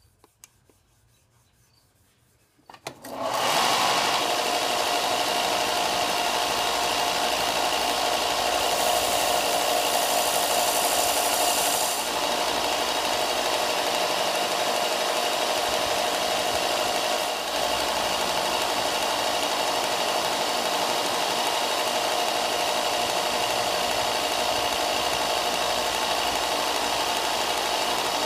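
Belt sander switched on about three seconds in and running steadily with a constant tone in its noise, while a karambit forged from a railroad spike is ground by hand against the belt to put its edge on. A brighter, harsher hiss comes from about nine to twelve seconds in.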